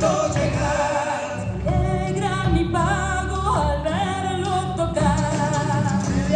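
Argentine folk song for dancing, a gato or chacarera, with a voice singing over instrumental accompaniment.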